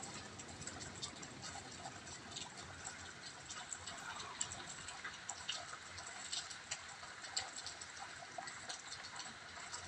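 Steady rain falling in a thunderstorm, a soft hiss with many small drops ticking irregularly.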